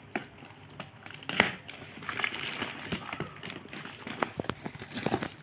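Toy packaging being handled and opened: irregular crinkling, rustling and clicking, with one louder snap about a second and a half in.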